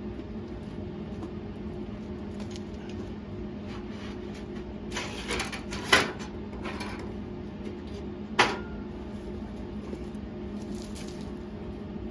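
A steady low machine hum, with a short crackly stretch around five seconds and two sharp knocks, one about six seconds in and one about eight and a half seconds in.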